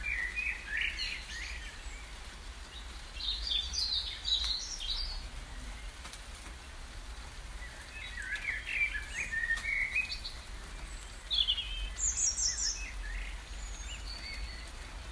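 Small birds chirping and singing in short phrases, several bursts one after another, over a steady low rumble.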